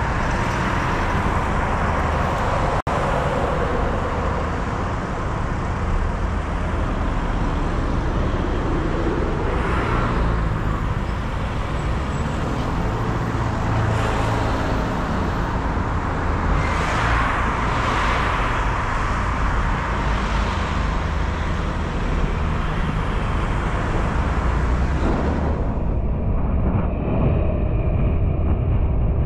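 Road noise while driving: a steady rumble of car engine and tyres with surrounding traffic, swelling louder twice. Near the end the sound turns duller as the high end drops away.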